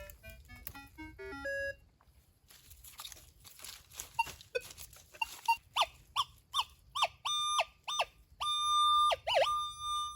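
Metal detector sounding over a buried target: short rising tones at first, then repeated beeps that lengthen into a long steady tone, with a brief dip in pitch near the end. The signal persists after the tyre is removed, meaning there is metal under it rather than the tyre's own wire.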